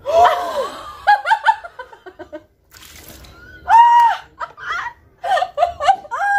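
Two women laughing and shrieking: short bursts of laughter broken by two long, high-pitched squeals, one about four seconds in and one near the end.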